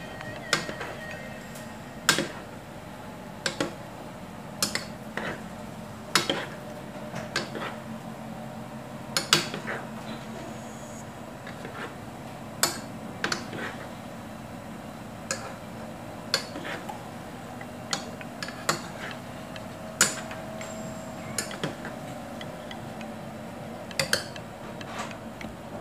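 Metal spoon and fork clinking against a cooking pot at irregular intervals while tossing rice noodles and vegetables, over a steady low hum.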